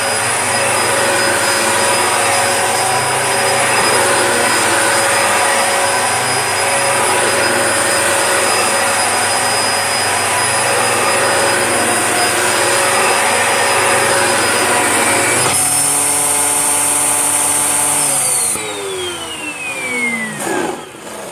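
Dyson DC01 upright vacuum cleaner running steadily under load on a mess of debris, then switched off near the end, its motor whine falling in pitch as it spins down.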